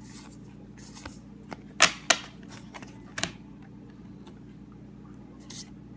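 A booster pack's foil wrapper being torn open and handled, heard as a few sharp crackles and clicks, the loudest about two and three seconds in, over a faint steady low hum.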